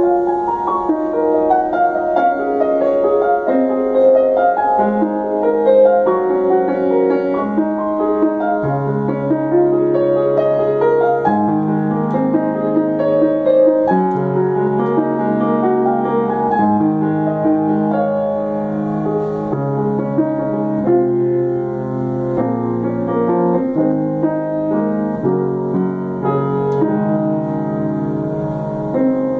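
Steinway grand piano played as a solo improvisation: a continuous flow of chords and melody, with the bass notes changing every second or so beneath a busier line of notes above.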